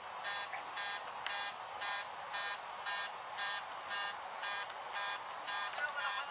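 Cockpit warning tone sounding over and over, about two pulses a second, over a steady hiss of cockpit noise.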